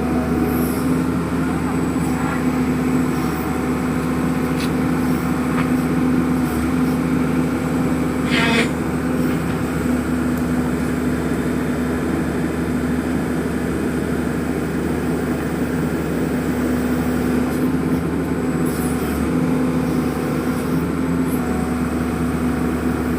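Horizontal directional drilling rig's engine running steadily under load, a constant hum. A brief sharp noise cuts through about eight and a half seconds in.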